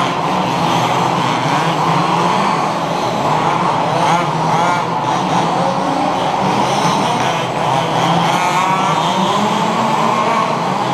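Several HPI Baja 1/5-scale petrol RC buggies racing, their small two-stroke engines buzzing together without a break. Rising and falling whines as they rev up and back off, clearest about four seconds in and again around eight seconds.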